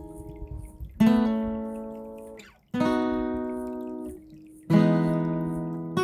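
Acoustic guitar in an instrumental break of a song: three chords strummed one at a time, about a second, two and three-quarter seconds and four and three-quarter seconds in, each left ringing and fading out.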